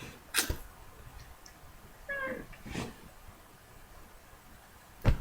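A short pitched call about two seconds in, among a few soft clicks and knocks, with a louder knock near the end.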